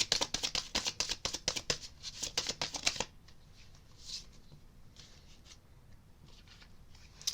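A deck of tarot cards being shuffled: a quick run of card flicks and snaps for about three seconds, then softer card handling with scattered rustles.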